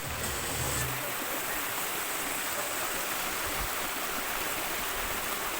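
Waterfall's water rushing in a steady, even roar, with a brief low rumble in the first second.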